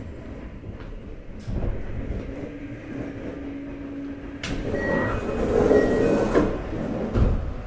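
A sliding passenger door on a JR Hokkaido 733 series electric train working while the train stands at a station. There is a sharp click about four and a half seconds in, then about two seconds of door movement noise with two short beeps, and a heavy thump near the end. A low steady hum from the train's equipment runs underneath.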